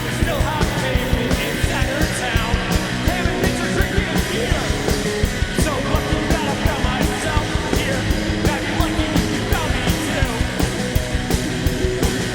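Punk rock band playing live: a loud, dense mix of electric instruments over a steady drum beat, with singing.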